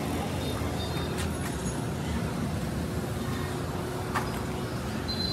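Steady rumble of road traffic and street noise, with a single short tap about four seconds in.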